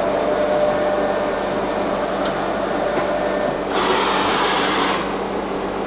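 Wintec MV-40 vertical machining centre running its program with the spindle at 3000 RPM: a steady whine over a constant hum. About three and a half seconds in the whine stops and a rushing sound lasts about a second.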